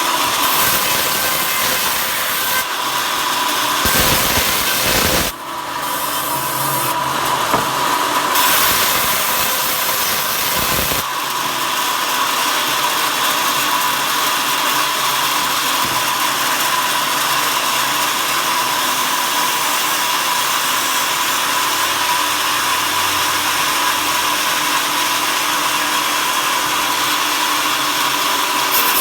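A power saw cutting wood, a continuous steady noise with a constant whine. The cut sounds heavier twice in the first eleven seconds.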